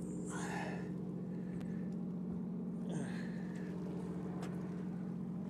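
Fishing boat's machinery running with a steady low hum, with two brief higher swishing sounds on top, about half a second in and about three seconds in.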